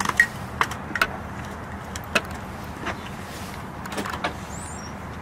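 Steady hum of an idling fire engine, with scattered short clicks and knocks from ambulance crew handling a gurney and equipment.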